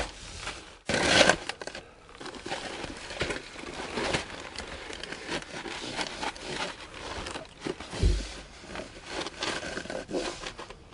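Plastic moisture-barrier sheeting crinkling and rustling as someone crawls and shifts about on it on hands and knees, with a louder rustle about a second in and a dull thump around eight seconds.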